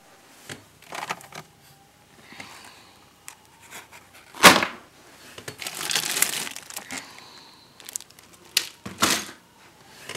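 Scattered rustling, crinkling and small clicks and knocks of objects being handled close to the microphone. Louder rustles come about four and a half seconds in and again near nine seconds.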